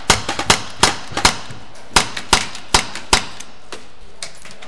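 Airsoft pistol firing a string of sharp single shots, about two or three a second. The shots thin out and fade after about three seconds.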